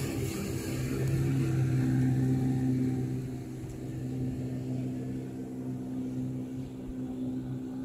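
Motorboat engine running out on the water with a steady drone, growing a little quieter after about three seconds as the boat moves away.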